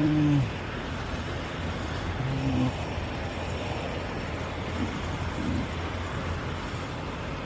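Semi-truck's diesel engine and road noise heard from inside the cab: a steady low hum under an even rush while it drives. Two short low tones sound at the very start and about two and a half seconds in.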